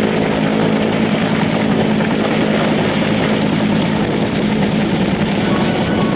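Steady drone of an aircraft engine running at constant power.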